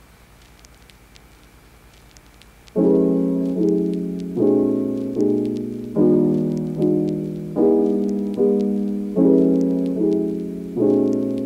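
Background music: after a quiet start, repeated chords come in about three seconds in, each struck and left to fade, a little more than one a second.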